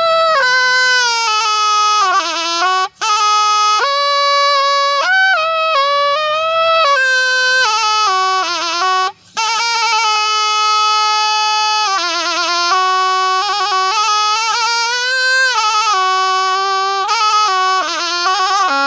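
Thai pi, a reed oboe, played solo: a continuous ornamented melody of held notes with wavering trills and quick turns between them, broken by two brief gaps about 3 and 9 seconds in.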